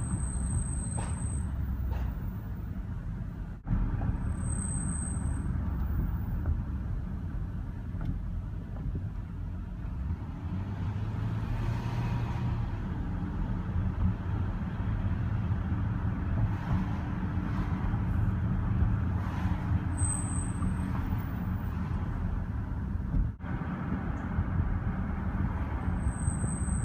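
Low-speed road and tyre rumble of a 2014 Range Rover L405, with a high-pitched brake squeal that comes and goes: at the start, briefly about five seconds in, again about twenty seconds in, and near the end. The squeal returns every 3–4 thousand miles and is taken by the owner as the sign that the pads and rotors need replacing.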